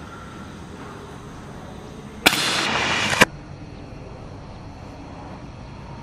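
A .177 break-barrel air rifle firing: a sharp crack about two seconds in, about a second of loud rushing noise, then a second sharp crack that ends it abruptly.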